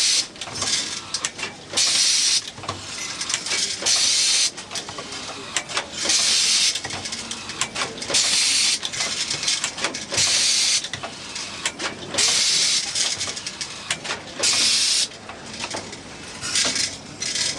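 Automatic screw locking machine running through its cycle: short loud bursts of hiss recur about every two seconds, with clicking and mechanism noise between them.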